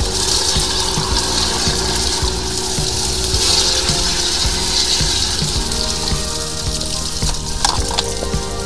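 A high-pressure drain jetter is at work on a clogged drain. The machine gives a steady hum under the continuous hiss of spraying water, with light, irregular knocks as the jetting hose pays off its spinning reel.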